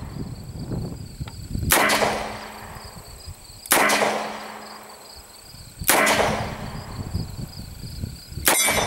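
Post-war Smith & Wesson Military & Police .38 Special revolver with a 5-inch barrel fired four times double action, about two seconds apart. Each shot is a sharp crack followed by a short decaying tail.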